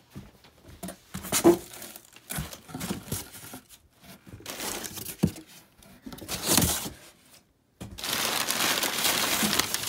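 Crumpled packing paper crinkling and rustling as a hand digs through it in a cardboard box, with irregular scrapes and a few knocks from the box flaps being pulled open in the first half. After a brief gap near the end, the crinkling runs on steadily.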